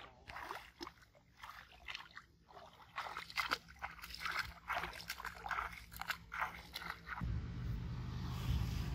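Irregular rustling, crackling and small splashes among water plants in a shallow weedy pond as a small fish is lifted out on a hook line. About seven seconds in, a steady low rumble begins.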